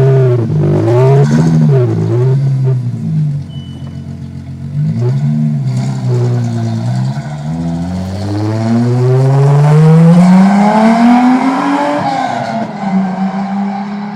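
Volkswagen Golf VR6's six-cylinder engine revving: a few quick blips up and down, then a long, steady climb in pitch over about five seconds, falling back to hold an even note near the end.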